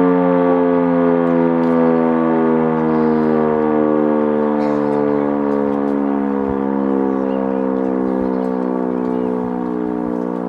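Type E57 electromechanical civil-defence siren winding down: a loud, many-toned wail whose pitch falls slowly and steadily as the rotor loses speed at the end of the test signal.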